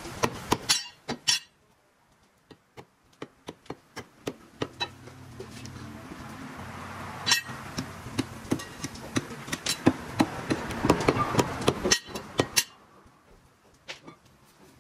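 Butcher's cleaver chopping mutton on a wooden chopping block: many sharp knocks in quick runs, with a short pause about two seconds in and the chops coming thickest a little past the middle.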